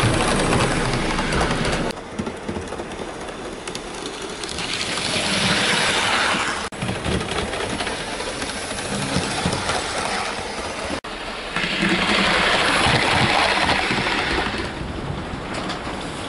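Hornby model HST power cars running on model railway track: a steady whirr and rail clatter that swells louder several times as the train passes close by. There are two very brief drop-outs, about seven and eleven seconds in.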